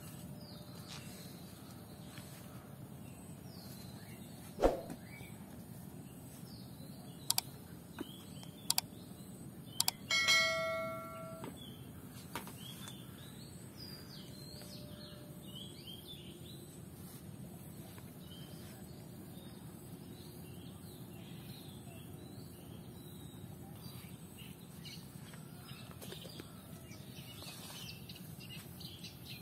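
Many small birds chirping over a steady outdoor hiss. A few sharp knocks come between about four and ten seconds in, and about ten seconds in a single metallic bell-like ring sounds and fades away over about a second.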